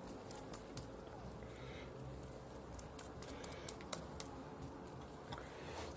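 Minced meat being patted and shaped into a patty between wet palms: faint, irregular soft slaps and clicks.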